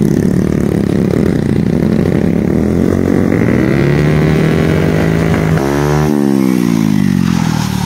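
Bajaj Pulsar motorcycle engine held at high revs while the rear wheel spins in loose dirt, its pitch climbing. About five and a half seconds in, a motorcycle passes close by with its engine note falling.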